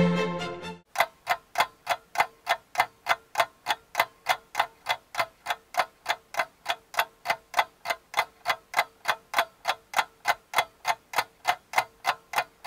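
Violin-led orchestral music dies away in the first second, then a steady, even ticking begins, about three to four ticks a second.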